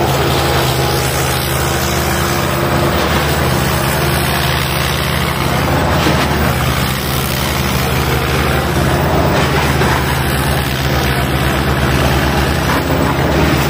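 Sonalika tractor's diesel engine running with a steady low drone as it pulls a heavy load.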